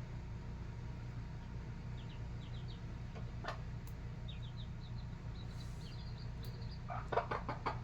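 Baby chicks peeping in short, faint, high chirps over a steady low hum. Near the end the mother hen starts a rapid run of clucks.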